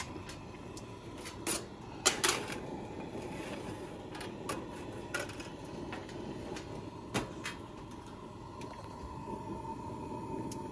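Scattered metal clicks and clanks as a cookie tray is handled into a Coleman folding camp oven and its steel door is shut; the loudest come about two seconds in. Under them runs the steady noise of the lit camp stove burner beneath the oven.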